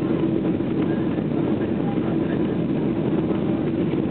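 Steady cabin noise of a Boeing 767-400ER on final approach, heard from a window seat over the wing: engine and airflow rush with a constant low hum underneath.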